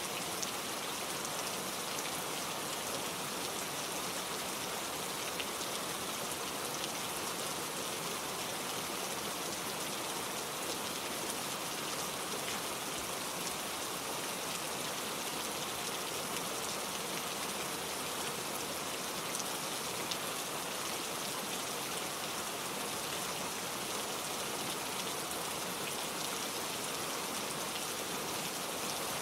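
Steady rain falling, an even hiss of many drops with faint scattered drop ticks and no change in strength.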